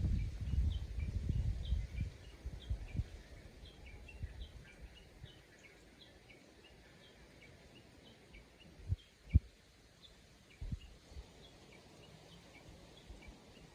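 Many small birds chirping in short, high, repeated calls, a countryside bird chorus. Low rumbling at the start, and a few dull low thumps past the middle.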